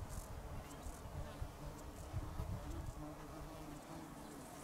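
Insects in the open air: a flying insect buzzing close by and others chirping in quick high pulses, with a few short low rumbles.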